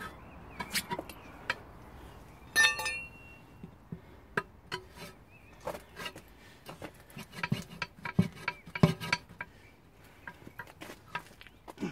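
Metal pry bar clinking and knocking against a wheel rim as it is worked between tyre and rim, with one loud ringing metal clang about two and a half seconds in and a busier run of knocks around eight to nine seconds.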